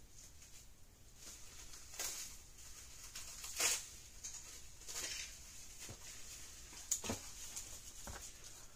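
Faint, irregular knocks and clatters, about half a dozen spread over several seconds with the loudest a little over a third of the way in, over a light steady hiss and low hum: objects being handled out of view.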